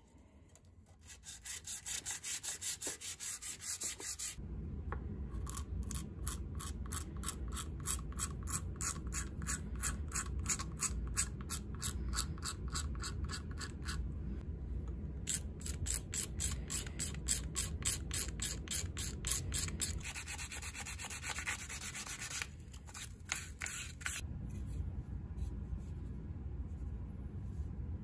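Rhythmic back-and-forth rubbing strokes, about three a second with short pauses: a steel hand-plane blade being rubbed flat on sandpaper to take off rust and pitting, and later old shellac being scraped and sanded off the plane's wooden knob and tote.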